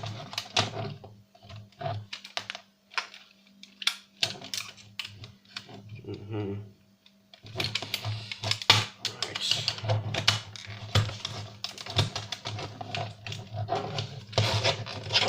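Irregular clicks, knocks and rattles of plastic and metal parts of a DVD player's drive mechanism being handled and pried loose by hand, sparse at first and busier about halfway through.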